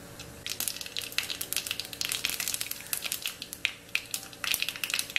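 Mustard seeds spluttering in hot ghee with cumin seeds and dried red chillies in a small tempering pan: irregular sharp pops and crackles over a faint sizzle.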